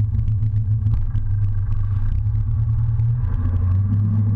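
Boat engine running with a steady low drone, the propeller wash churning and splashing at the stern.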